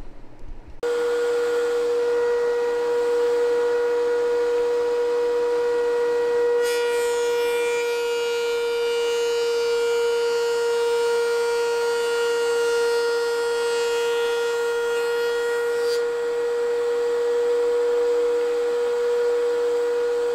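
DeWalt three-knife thickness planer running with a steady high whine. For about nine seconds in the middle a board feeds through, and the knives planing it down to final thickness add a loud rushing hiss before the machine runs empty again.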